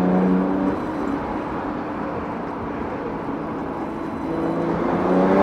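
BMW 335i's N54 twin-turbo straight-six exhaust note: the engine sound fades away in the first second, leaving a steady road or wind rush. Near the end the engine note rises again as the car accelerates.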